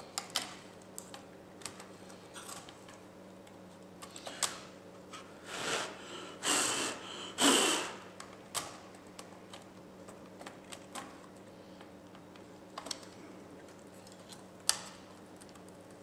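Scattered plastic clicks and taps as a laptop keyboard is seated into an HP Pavilion's top case and pressed into place. A few longer scraping, rubbing noises come about six to eight seconds in, the loudest part.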